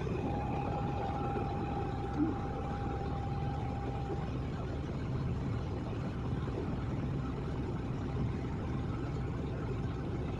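Excavator engine running steadily, with a faint steady tone over it for the first four seconds.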